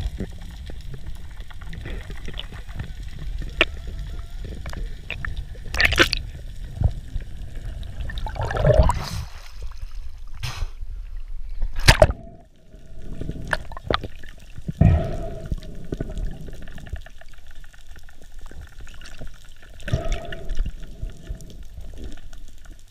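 Underwater sound heard through an action camera's waterproof housing: a muffled low rumble of moving water with gurgles and scattered sharp clicks and knocks, the loudest about twelve seconds in.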